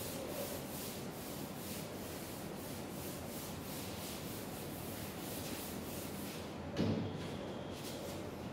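Chalkboard duster scrubbing across a blackboard in quick, even back-and-forth strokes, several a second. About seven seconds in there is a single thump, after which the scrubbing stops.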